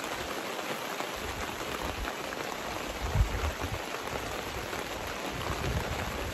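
Steady pouring rain, with a few dull low thumps, the loudest about three seconds in.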